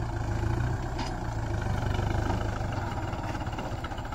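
Kubota tractor's diesel engine running at low throttle, a steady low drone as the tractor pulls slowly across the field.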